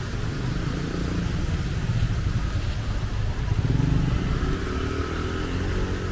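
Street traffic: motor vehicle engines running in a steady rumble, with one engine rising in pitch as it speeds up about two-thirds of the way through.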